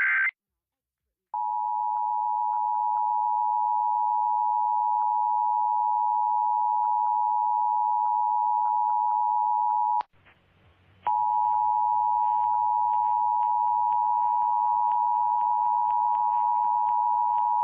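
Emergency Alert System attention signal: the steady two-tone alert (853 and 960 Hz sounded together), starting about a second in. It drops out for about a second around ten seconds in, with a click, then resumes and holds.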